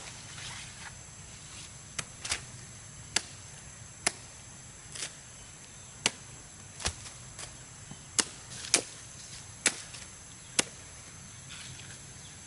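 Repeated sharp knocks, about eleven blows at a slightly uneven pace of a little under one a second, like chopping or hammering, over a steady high-pitched hum.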